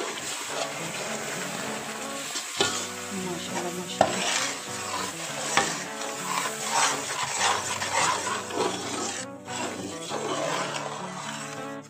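Metal spoon stirring hot jaggery syrup into ghee-roasted wheat flour and gram flour in a large aluminium pot, the mixture sizzling while the spoon scrapes and clicks against the pot again and again.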